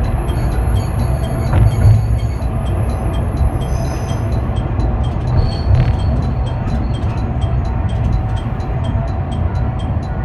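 Diesel railcar running slowly alongside a station platform, heard from the driver's cab: a steady low rumble with a fast, even ticking over it and a few brief high squeals in the first few seconds as it brakes toward a stop.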